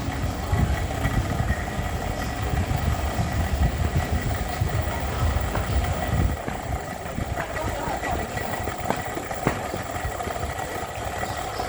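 Train running sound: a low rumble with scattered clicks that drops away about six seconds in as the train slows into a station.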